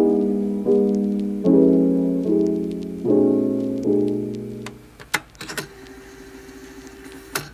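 Background piano music: soft chords, each struck and left to fade, about one every 0.8 s. The music drops away about five seconds in, leaving a few brief crinkles and taps from hands handling plastic air-pillow packing in a cardboard box.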